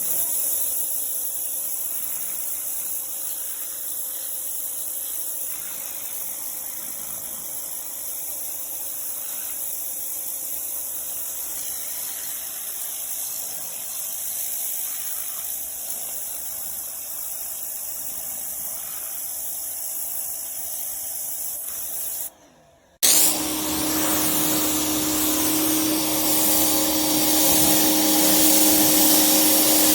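Greenworks electric pressure washer spraying, a steady hiss of water under pressure. About three quarters of the way through, the sound breaks off briefly and is replaced by the louder, steady hum of the washer's electric motor and pump running.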